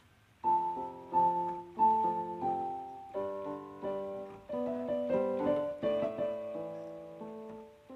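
Background music played on piano: a melody of struck notes over chords, starting about half a second in.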